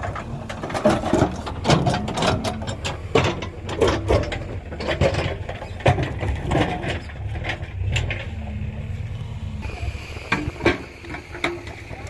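JCB 3DX backhoe loader's diesel engine running under repeated knocking and clattering of rocks as its bucket works through a pile of broken stone. The knocks thin out after about eight seconds while the engine keeps running.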